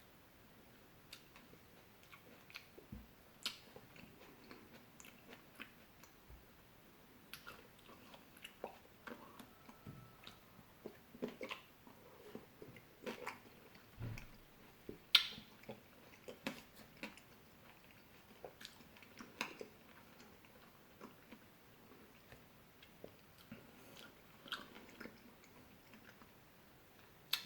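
A person chewing and biting into fresh fruit close to the microphone: short mouth clicks and smacks at uneven intervals, the loudest about fifteen seconds in.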